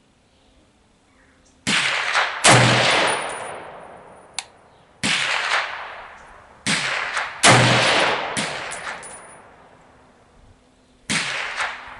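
M14A4 rifle firing 7.62x51mm rounds: six sharp shots at uneven spacing over about ten seconds, each trailing off in a long echo. The loudest two come about two and a half and seven and a half seconds in.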